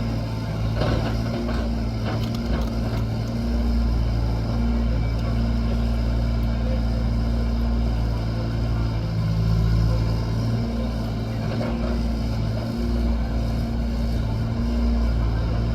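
A construction machine's engine running steadily at a low, even pitch, its level swelling and easing slightly, with a few light knocks in the first few seconds.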